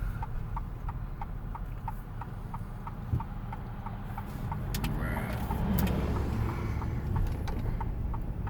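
Car turn-signal indicator ticking steadily, about two to three clicks a second, over the low hum of the idling car inside the cabin. A louder rush of a passing vehicle swells about five seconds in.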